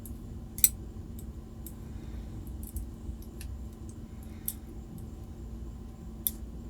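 Small metal parts of a disassembled pin-tumbler padlock clicking and tapping as the pins are handled. There are a few sharp clicks, the loudest about half a second in, with fainter ticks between them, over a low steady hum.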